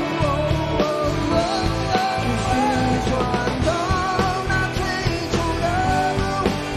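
Live rock band performance: a male lead vocal sung over guitars, drums and keyboards with a steady beat.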